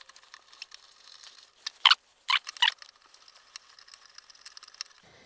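Small clicks and faint scratching of a screwdriver working at a plastic outlet cover plate as it is fastened on, with three louder, sharper clicks close together around the middle.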